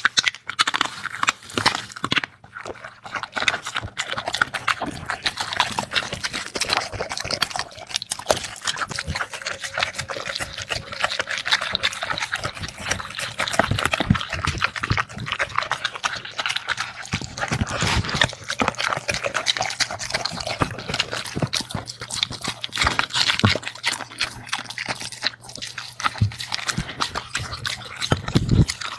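A dog eating noisily: a dense, irregular run of wet smacking, licking and chewing.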